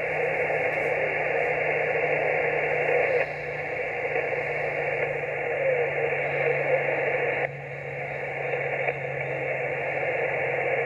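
Hiss and static from a Yaesu FT-891 transceiver's speaker, tuned to 20-metre single sideband, with no station readable, over a steady low hum. The hiss drops in level twice, about three and seven seconds in.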